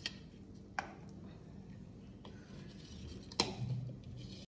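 A few light clicks and scrapes of a metal spoon against a plastic blender jar as apple puree is scooped out into a bowl, over a low hum. The sound cuts off abruptly to dead silence near the end.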